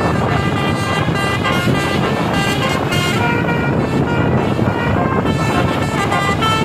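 Basuri 18-note telolet horn on a tour bus, playing a melody of short stepped horn notes over the rumble of the bus and traffic.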